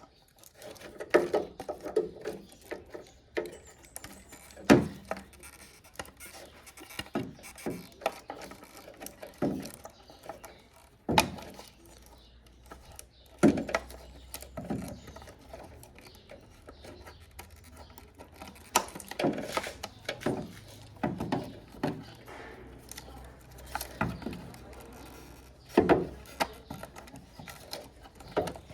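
Irregular clicks, knocks and rustles of a pickup taillight's hard plastic housing, bulb sockets and wiring being handled and pushed into place.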